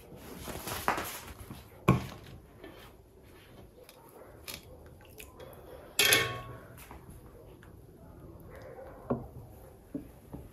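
Kitchen clatter of glass jars and a metal jar hook against a cast-iron pot: a rustle at the start, a sharp knock about two seconds in, a loud ringing metallic clang about six seconds in as the jars are lifted out of the pot of water, and lighter knocks near the end as the jars are set down on a wooden board.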